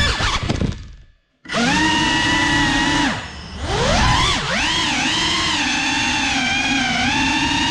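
FPV quadcopter's brushless motors whining. They wind down to silence about a second in, spin back up, dip briefly around three seconds in, then rise again and hold a steady whine.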